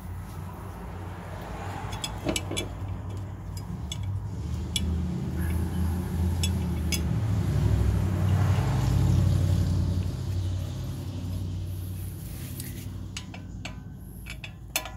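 A low rumble that swells to its loudest about nine seconds in and then fades, with a few sharp metal clicks from the brake rotor, its retaining screw and tools being handled.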